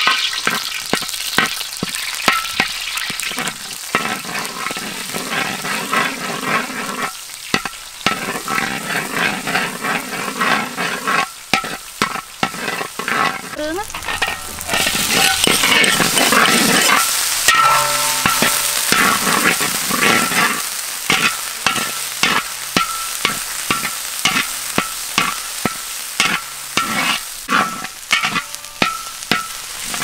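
Spice paste sizzling in hot oil in a large iron wok, with a metal spatula scraping and tapping against the wok in quick, irregular strokes. The sizzling swells for a few seconds about halfway through.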